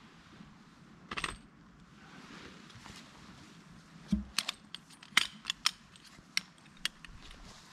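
A brief rustle about a second in, then sharp metallic clinks, about eight in three seconds, as the sectioned metal tent pole is pulled apart and folded up.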